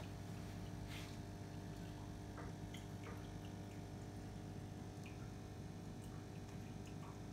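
Steady low hum of aquarium equipment, such as a filter or air pump, with scattered faint ticks and drips of water; the clearest tick comes about a second in.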